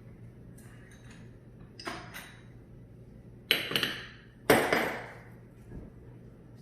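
Metal parts of a Warn 8274 winch motor knocking together as it is worked apart: a few light clinks, then two sharp metallic knocks about a second apart, each ringing briefly.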